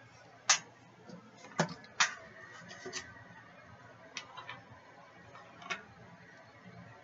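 Scattered sharp clicks and light taps, about seven at irregular intervals, the loudest about half a second in and around two seconds in.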